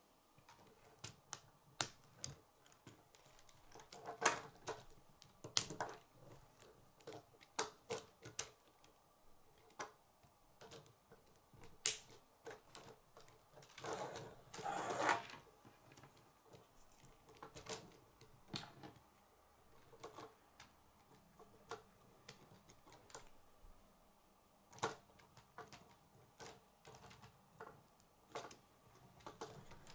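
K'nex plastic rods and connectors clicking and snapping as pieces are fitted onto the model, in irregular single clicks, with a longer rattling stretch about halfway through as the model is handled.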